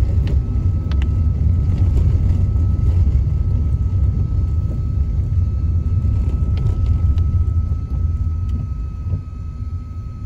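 Steady low rumble of a car's engine and road noise heard from inside the moving car's cabin, easing slightly near the end. A faint steady high tone runs beneath it.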